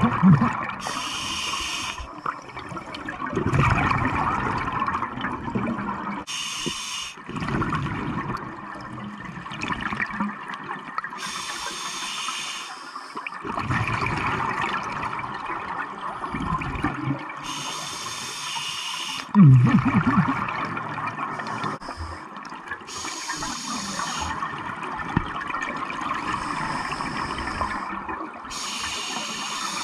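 Scuba regulator breathing heard underwater through a camera housing: a short hiss on each inhale and a longer stretch of bubbling on each exhale, in a cycle of about five to six seconds. The loudest bubble bursts come at the start and about two-thirds of the way through.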